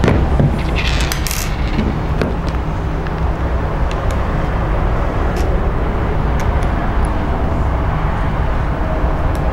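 Scattered light metal clicks and clinks from an Allen wrench and small parts being worked on a paintball marker, with a brief rustle about a second in, over a steady low rumble.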